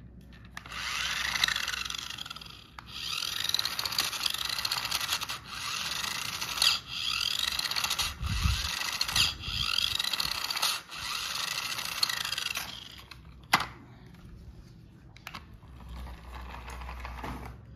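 Toy RC jeep's small electric motor and plastic gearbox whirring as its wheels are driven, in runs of a few seconds with brief breaks, the pitch rising and falling as it speeds up and slows. There is a low thump near the middle and a sharp click a little later, then it goes quieter.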